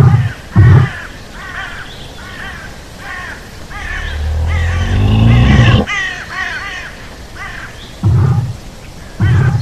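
A deep dinosaur roar sound effect that rises in pitch from about four seconds in and cuts off suddenly just before six seconds, with heavy thuds near the start and again near the end, and crow-like cawing throughout.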